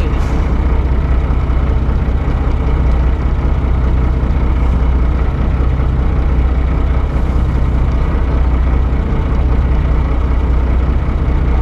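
Boat engine running steadily at a constant low drone.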